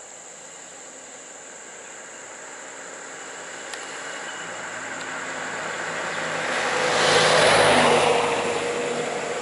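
A car driving past close by: its engine and tyre noise grow louder, peak about three quarters of the way in, then ease off. A steady high insect buzz runs underneath.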